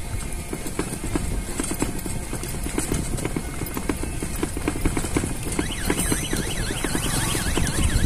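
Rattling knocks and low wind rumble from a vehicle riding along a road. From about six seconds in, an electronic warbling tone joins, rising and falling about three times a second like a siren-style horn or alarm.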